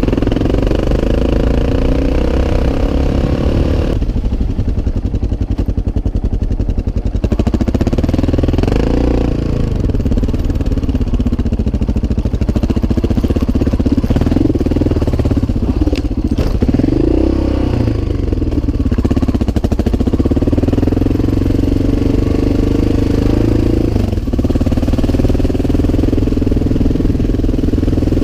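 Enduro motorcycle engine running while being ridden on a dirt trail, its revs rising and falling with the throttle, with a duller stretch about four to seven seconds in.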